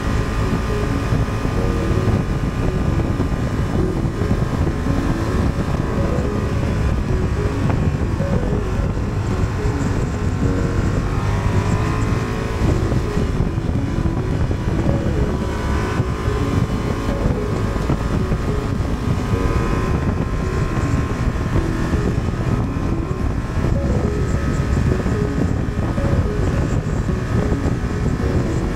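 A 2023 Honda Transalp's 755 cc parallel-twin engine running steadily under way, with wind rushing over the microphone. The revs rise twice, about twelve and sixteen seconds in.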